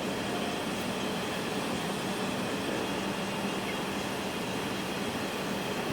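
Steady mechanical hum of a running wave solder machine: an even rushing noise with a constant low tone, unchanging throughout.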